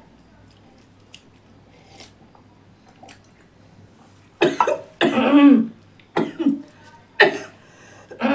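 A woman coughing hard in a run of four or five short coughs, beginning about four seconds in, after faint eating sounds of chewing and fingers in rice.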